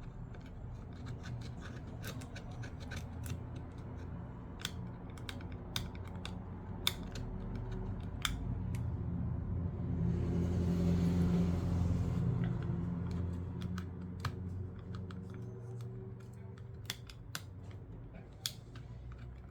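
Small hand tools scraping and clicking against the iPad 2's frame as it is cleaned up for the new digitizer: scattered sharp ticks over a steady low hum, with a louder stretch of scraping noise about halfway through.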